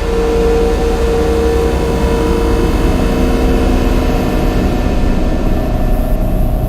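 Dark cinematic drone: a dense, steady low rumble layered with held tones, one higher tone prominent for the first few seconds and a lower one coming in about halfway through.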